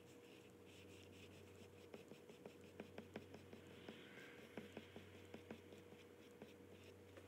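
Faint, irregular scratches and ticks of an oil pastel being stroked over paper, thickest from about two seconds in until near the end, over a steady low hum.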